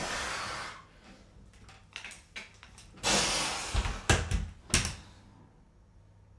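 Two short hissing bursts about three seconds apart, followed by a quick run of four or five knocks and clatters from the metal walking frame being swung down and gripped.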